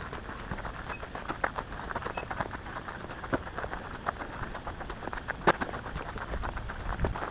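Footsteps crunching and crackling on dry leaf litter and twigs along a bush track, with a couple of sharper snaps about a third and three-quarters of the way in. Faint short bird chirps sound now and then.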